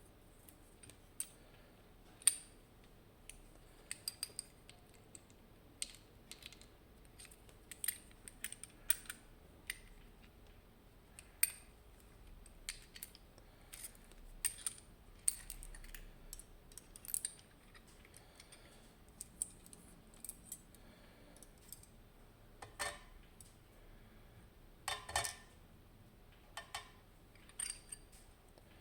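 Irregular small metallic clicks and taps from the discs, spinners and sidebar of an ABUS Plus disc-detainer lock core being handled and set down while the lock is taken apart. The clicks grow louder and come in small clusters near the end.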